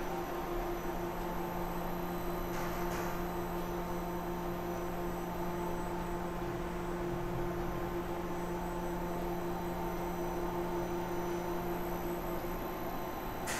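Powered-up Mori Seiki NV-5000 vertical machining center idling: a steady machine hum with several steady tones, and no cutting.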